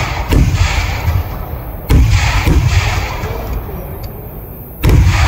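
Heavy firework blasts from a Kerala vedikettu display: three loud booms, the second about a second and a half after the first and the third some three seconds later, each rolling on into a long deep rumble.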